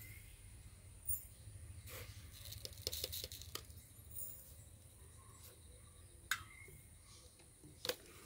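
Faint clicks and taps of a plastic spoon knocking against a plastic sugar jar and ceramic mugs as sugar is scooped and tipped in: a few single ticks, with a quick run of them about three seconds in.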